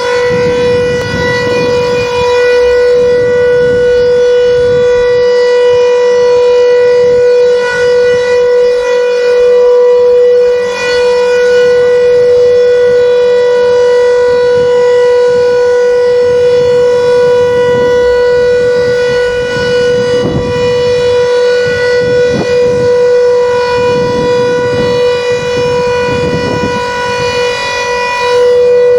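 Civil defence emergency siren sounding one loud, steady tone that holds its pitch without wailing up and down, sounded as a scheduled public warning test.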